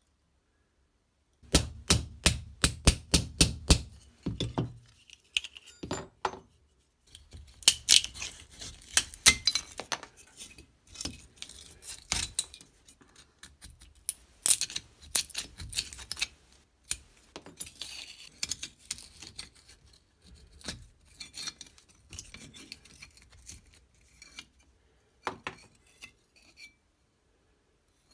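Steel-on-steel taps and clinks from taking apart a rusty folding knife on a small anvil: a quick run of sharp taps, about four a second, in the first few seconds, then irregular clinks and light scrapes as the pins and handle parts are worked loose with a punch and a prying tool.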